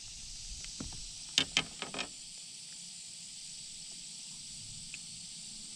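Insects droning steadily in a high, even hiss, with a few light clicks about a second and a half in.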